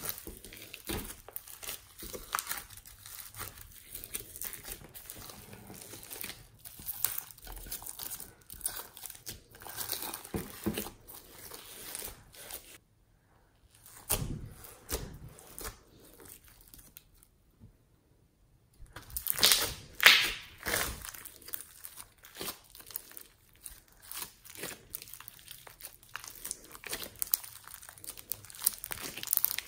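White glossy slime mixed with small foam beads being kneaded, pressed and stretched by hand: dense crackling and squishing as the beads pop and the slime pulls apart. It drops out briefly twice near the middle, and the crackling is loudest a little after the second gap.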